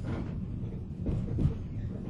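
Onboard running sound inside a 485-series electric train's motor car: a steady low rumble of wheels and running gear, with a couple of knocks a little past a second in.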